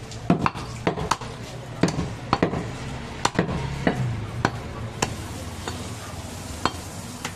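A heavy butcher's knife chopping goat meat on a wooden log chopping block: a quick, irregular run of sharp chops that thins out after about four and a half seconds.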